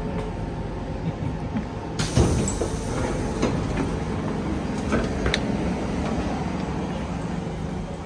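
Singapore MRT train and station ambience: a steady rumble, with a louder swell about two seconds in and a sharp click a little past five seconds.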